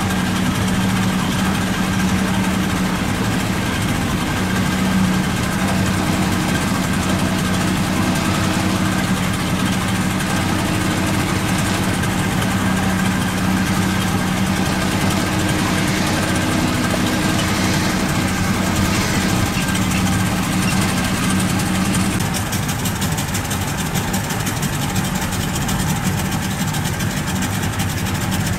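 A boat's engine running steadily with a constant humming note, under an even hiss. About two-thirds of the way through, the note changes and weakens.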